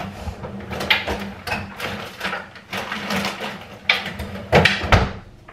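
Groceries in packaging being rustled and set into a pull-out freezer drawer: a quick run of crinkles and light clatters, with two heavier thumps near the end. A steady low hum underneath.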